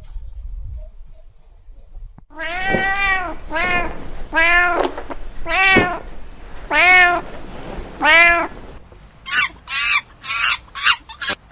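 A domestic cat meowing six times, each meow about half a second long and rising then falling in pitch. Near the end, after a cut, a different animal gives a run of short, quick honking calls.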